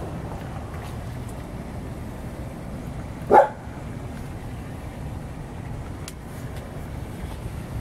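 A dog barks once, sharply, about three seconds in, over a steady low rumble.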